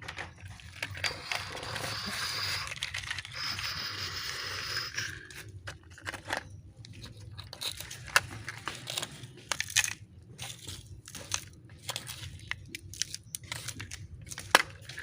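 Plastic toy trucks being handled and pushed along: a rushing scrape for the first few seconds, then a run of small sharp clicks and knocks.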